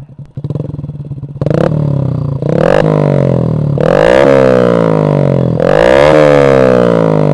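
Underbone motorcycle with an aftermarket exhaust, idling and then revved hard in place about four times. After each blip of the throttle the engine speed rises sharply and falls back, and the last revs near the end are the loudest.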